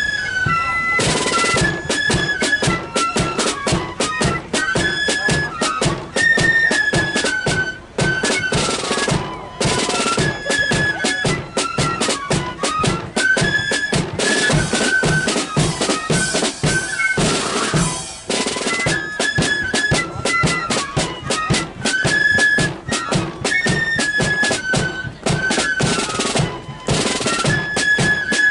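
Marching flute band playing a tune: flutes carry a stepping melody over snare drums, with a bass drum.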